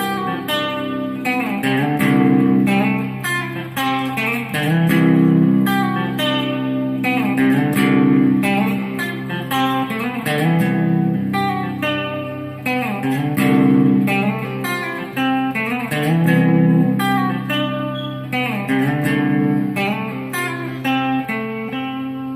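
Electric guitar with Dialtone pickups, strummed through a repeating chord progression of many quick strokes, its tone set a little brighter with the pickup's resonance control.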